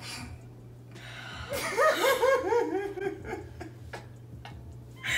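A person laughing: a run of quick, high-pitched ha-ha pulses starting about a second and a half in and lasting under two seconds, then fading, with a faint low steady hum underneath.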